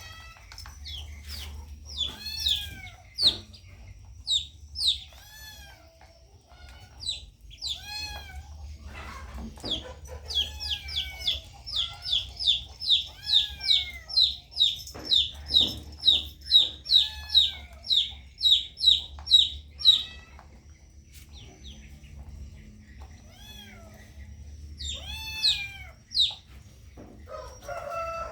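Young poultry peeping: short, high calls that fall in pitch. They come scattered at first, then in a fast, loud run of about two to three a second through the middle, with some lower calls mixed in.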